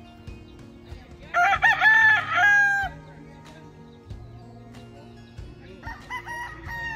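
Rooster crowing: one loud crow of several notes lasting about a second and a half, starting just over a second in. A second, fainter rooster crows near the end.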